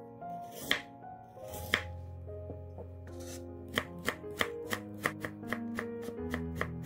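Chef's knife cutting carrot on a wooden cutting board: two separate slices in the first two seconds, then steady chopping at about four strokes a second from about four seconds in.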